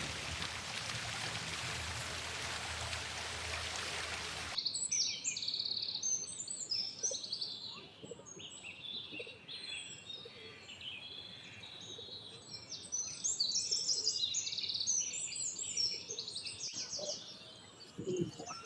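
A steady rushing noise, like surf or running water, cuts off abruptly about four and a half seconds in. Many small birds then chirp and twitter in a dense, overlapping chorus.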